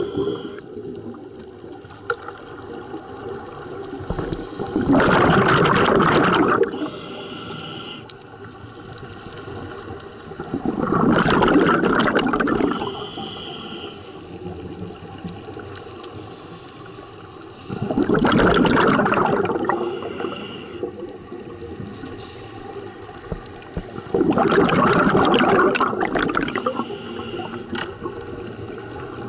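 Scuba diver breathing through a regulator, heard underwater: a gurgling rush of exhaled bubbles about every six to seven seconds, four times, with quieter stretches between breaths.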